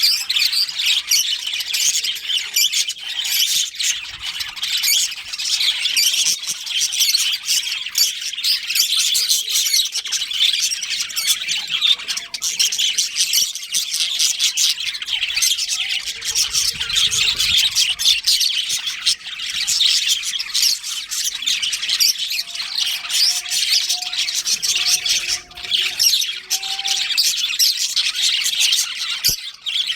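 A colony of budgerigars chattering and chirping, a dense, continuous stream of rapid high squawks and warbles from many birds at once.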